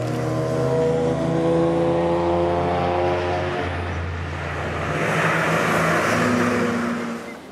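Race car engines running: a steady engine note for the first few seconds, then a louder rush as a car passes close by about five seconds in.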